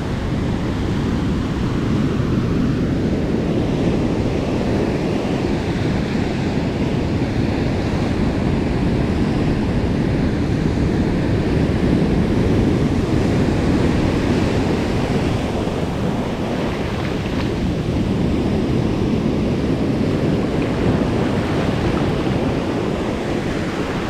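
Sea surf washing steadily onto a beach, with wind buffeting the microphone.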